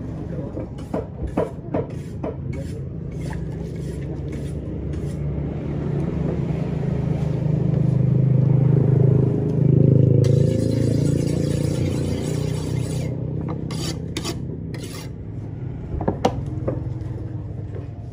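Large knife cutting fresh tongkol (mackerel tuna) on a wooden chopping block: a quick run of sharp knocks and scrapes as the blade strikes and drags through flesh and wood, pausing midway and returning near the end. A low mechanical hum underneath swells through the middle and is the loudest thing there.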